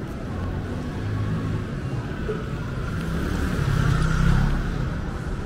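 City street noise with a car passing close by. Its sound swells to a peak about four seconds in, over a steady low rumble of traffic.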